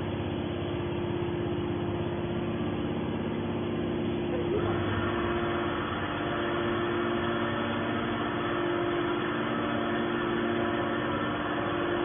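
Hydraulic scrap metal baler running, its pump motor giving a steady hum made of several even tones; about four and a half seconds in the sound changes and a higher hum joins it.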